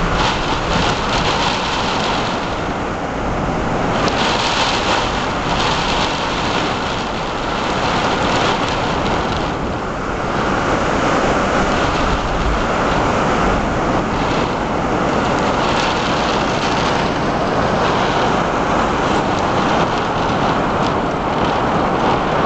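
Heavy wind-driven rain pouring down in a loud, continuous hiss that swells and eases every few seconds with the gusts.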